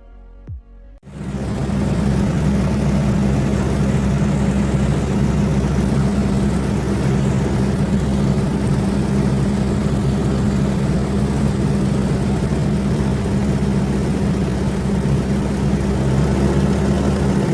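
A loud, steady low mechanical drone that sets in abruptly about a second in, cutting off a few plucked notes of music, and holds without change.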